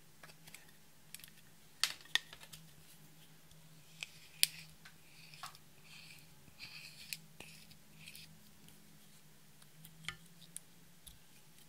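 Red plastic spatula scraping pressed glitter eyeshadow out of its compact in short scratchy strokes. Sharp clicks from the plastic compact case come about two seconds in, and more clicks come near the end.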